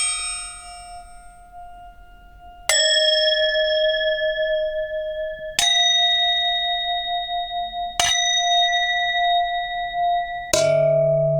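Struck metal ringing: five strikes, about two and a half seconds apart, each at a different pitch and left to ring on with a slightly wavering tone. The last strike is noticeably lower.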